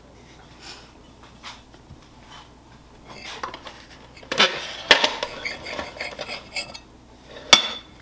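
A kitchen knife scraping and clinking against a plate as pieces of cake are cut and moved, with a few sharp clinks, two about halfway through and the loudest near the end.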